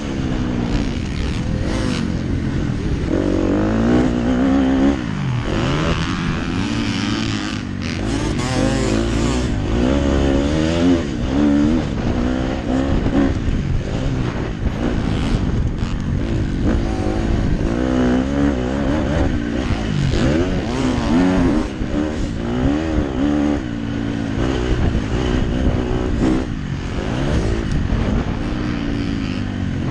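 KTM SX 250F motocross bike's four-stroke single-cylinder engine heard on board at race pace, revving hard and easing off again and again, its pitch repeatedly climbing and dropping.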